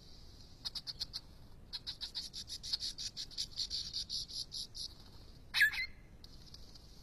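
Australian lyrebird calling: runs of rapid, sharp clicking notes over a steady high buzz, then one loud swooping note about five and a half seconds in.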